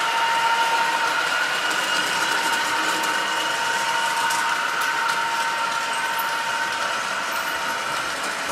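H0-scale model train running along the track: a steady electric motor whine over a continuous rolling rattle of wheels on rail, slowly fading as it moves away.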